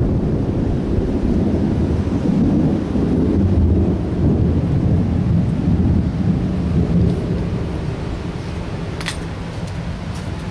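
A long, low roll of thunder, loud for the first several seconds and then slowly fading. A single sharp click comes about nine seconds in.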